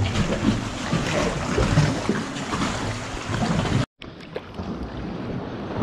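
Water lapping and splashing around a sea kayak inside a sea cave. After a sudden cut about four seconds in, a quieter steady wash of wind and small waves on open water.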